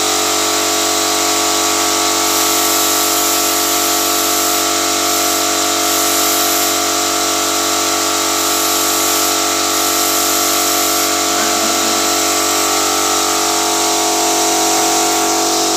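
Air compressor motor running steadily under the hiss of a hose-fed paint spray gun. The hiss brightens and dims as the spraying starts and stops.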